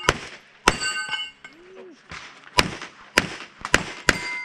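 A string of pistol shots, two at the start, then a pause of about two seconds before four more in quick succession. Several shots are followed by the ringing ping of struck steel targets.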